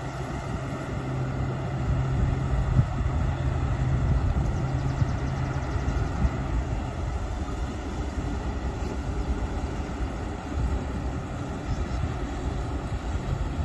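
Engine of a harvesting machine running steadily under load, with a low steady hum that fades about six seconds in.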